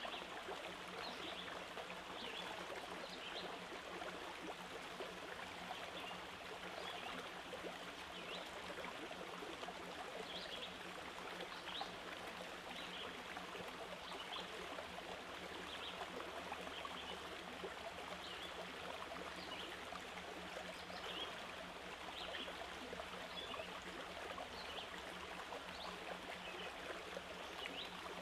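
Steady rush of running water, with faint short high chirps scattered through it.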